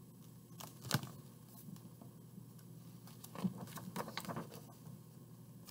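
Hands turning the large paper page of a picture book: paper rustling and flapping. A short sharp rustle comes about a second in, and a longer flurry of rustles between about three and four and a half seconds in.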